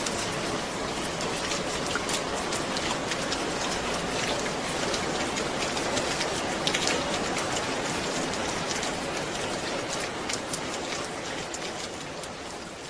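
Steady rain falling, with individual drops ticking on a surface, fading down over the last few seconds.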